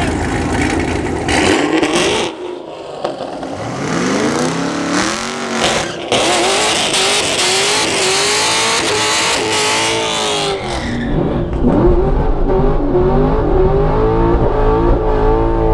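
Camaro's V8 revving hard through a burnout: the engine climbs in pitch, then the rear tires spin and hiss for about four seconds at high revs. After the tire noise stops, the engine is blipped in a run of rising-and-falling swells.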